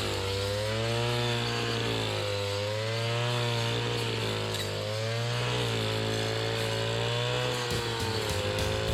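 Small petrol engine of a grass-cutting machine running steadily, its speed rising and falling slowly as it works.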